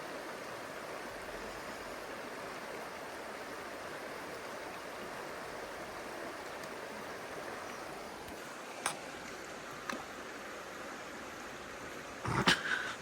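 Mountain trout stream flowing steadily over rocks. Two sharp clicks about a second apart partway through, and a louder cluster of knocks near the end.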